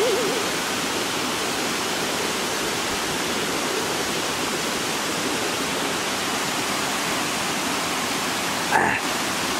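Steady rushing of flowing water, like a mountain stream. A short, louder sound with a brief rising tone cuts in near the end.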